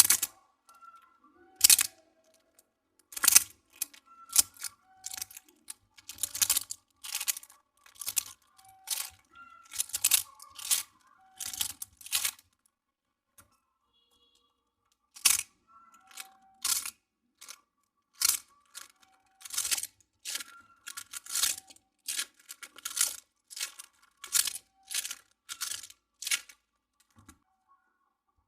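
Crunchy toy texture squeezed and pressed by hand, giving a crackling crunch every second or so, with a pause of about three seconds midway.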